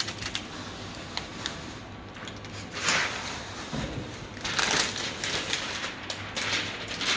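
Protective plastic film being peeled off a metal 3D-printer bed plate, crackling and rustling, with louder crackles about three seconds in and again around five seconds.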